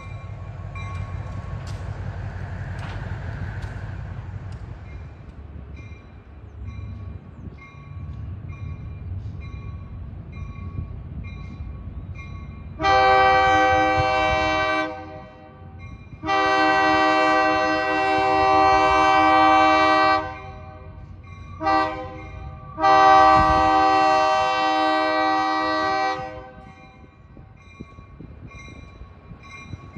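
EMD SW1200 diesel switcher's Nathan K3LA air horn sounding the grade-crossing signal, long, long, short, long, over the low rumble of the locomotive's engine. The horn starts a little before halfway through and ends shortly before the close.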